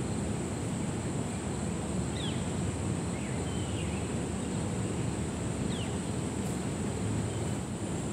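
Outdoor ambience: a steady low rush of breeze on the microphone, with three short, high, falling bird chirps.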